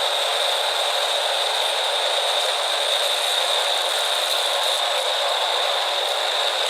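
Heavy machinery running steadily, an even mechanical noise with a constant high whine over it and no breaks.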